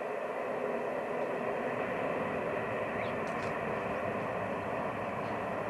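Distant four-engine turboprop of a KC-130 tanker running on the runway: a steady, even drone of propellers and engines.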